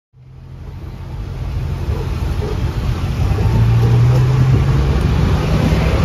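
Tuk-tuk engine running under way with road noise, fading in from silence and growing loud; its engine note steps down in pitch about halfway through.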